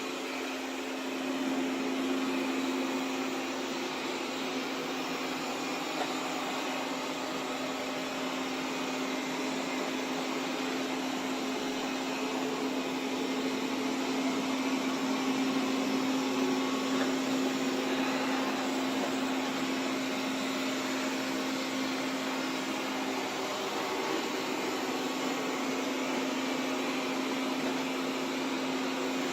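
Xiaomi Mi Robot Vacuum (first generation) running: a steady motor hum with an even hiss of suction air, a little louder for a few seconds in the middle.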